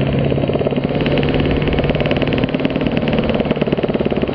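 Homebuilt light helicopter in flight, heard from inside the cockpit: its engine and rotor make a loud, steady drone with a fast, even pulsing.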